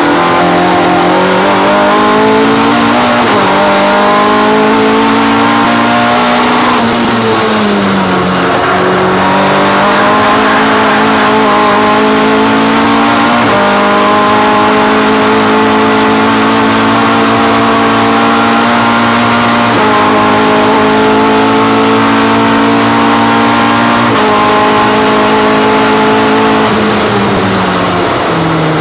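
Racing car engine heard from inside the car at sustained high revs under hard driving. The pitch jumps abruptly a few times, as with gear changes, falls away about seven seconds in and then climbs again, and drops steadily near the end as the car slows.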